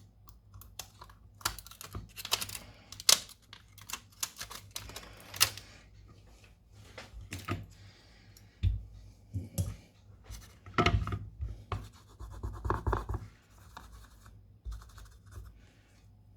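Irregular clicks and short scraping strokes of small hand tools working on a smartphone's display, with a faint hum underneath.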